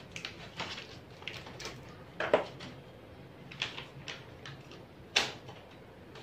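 Scattered plastic clicks, knocks and rustles from a color laser printer's imaging drum kit being handled, with the sharpest knocks about two seconds in and about five seconds in.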